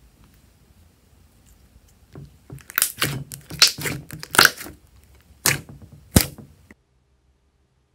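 Thick glossy slime being squeezed and stretched by hand, trapped air popping out of it in a run of loud, sharp crackling pops that begins about two and a half seconds in. The sound cuts off abruptly near the end.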